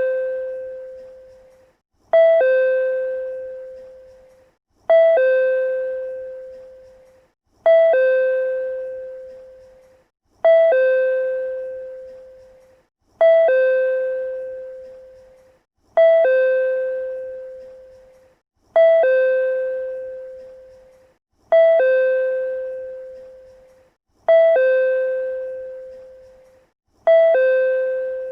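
PRC-type two-tone chime repeating on a loop, about ten times: a short higher note followed by a longer lower note that rings out and fades, one ding-dong every couple of seconds.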